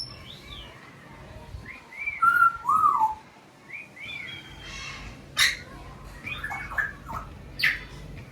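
Parrots calling: a run of short, arching whistled calls, with two loud harsh screeches, one about halfway through and another near the end.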